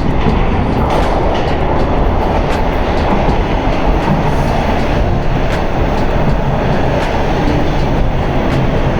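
A TTC rail car running along the track: a steady, loud rumble with a few scattered clicks from the wheels.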